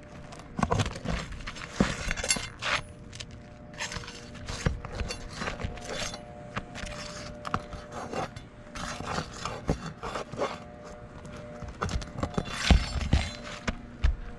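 Metal roofing tool scraping and knocking under asphalt shingles as roofing nails are pried out, in irregular scrapes and sharp clicks, with a few louder knocks near the end.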